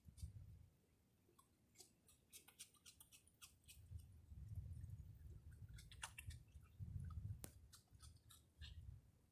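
Raccoon chewing popcorn: faint, crisp crunching clicks, sparse at first and coming thick and irregular from about two seconds in, over a low rumble that comes and goes.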